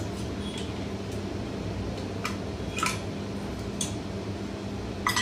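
A few short, sharp clicks and taps of small tools and a desoldered MOSFET being handled against a TV power-supply circuit board, over a steady low hum.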